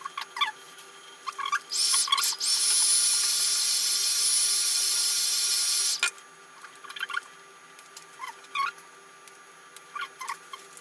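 A hot-air blower switches on about two seconds in, gives a steady hiss with a high whine for about four seconds, and cuts off suddenly. It is warming the adhesive under a MacBook Pro's glass panel. Short high squeaks come before and after.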